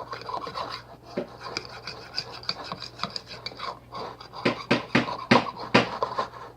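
Fork scraping and clinking in a bowl of microwaved scrambled eggs, with a run of louder knocks in the second half.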